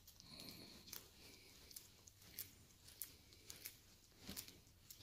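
Near silence, with faint rustling and scattered small clicks of gloved hands twisting stranded copper wire around a plasma torch's nozzle.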